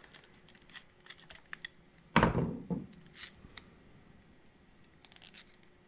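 Screwdriver and small metal parts being handled while the Phillips screws come out of a motorcycle gas cap lock: faint scattered clicks and ticks, with one louder knock about two seconds in.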